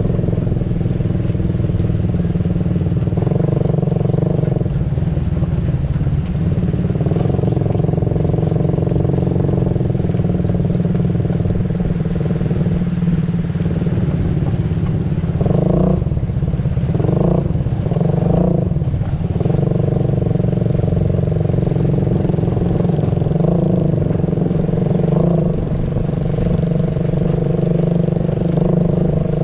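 Motor vehicle engine running steadily, its pitch swinging up and down a few times around the middle.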